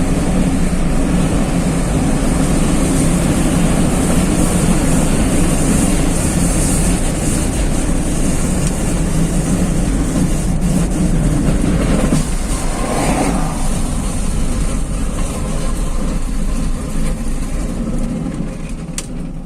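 Car driving on a wet highway, heard from inside the cabin: steady engine and tyre noise, which changes in character about twelve seconds in and then fades as the car slows near the end.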